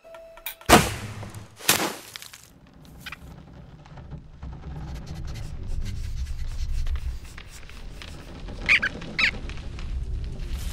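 Cartoon sound effects: a bowstring released with a sharp snap, then a second hard hit about a second later. A low rumble then builds, with two quick high squeaks near the end.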